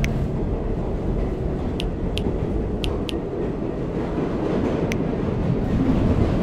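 Steady low rumble of a subway train running, heard from inside the car, with a few light clicks between about two and five seconds in.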